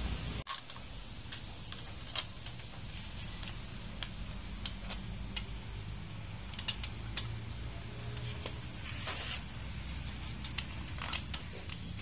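Irregular light metal clicks and clinks of a hand wrench working the bolts on a Bajaj CT100's engine case and footrest mount, over a steady low hum.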